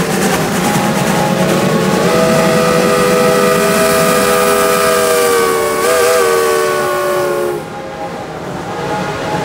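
Several Shay geared steam locomotives passing close, their steam whistles blowing together in one long chord over the rush of steam and exhaust. The chord shifts pitch about two seconds in, wavers briefly near six seconds, and the whistles cut off about a second and a half later, leaving the noise of the passing engines.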